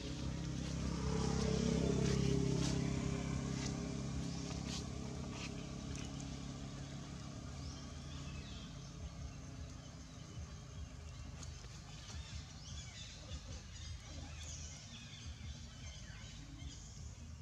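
A motor vehicle's engine passing by: a low hum that swells to its loudest about two seconds in and fades away over the following several seconds. Faint outdoor ambience with scattered small clicks is left afterwards.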